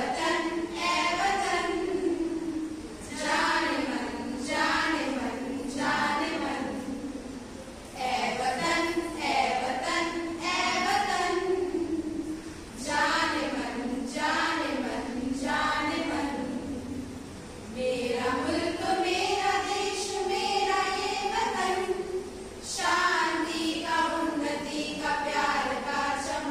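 A small group of women singing a patriotic song together in unison, in long phrases with brief pauses for breath between them.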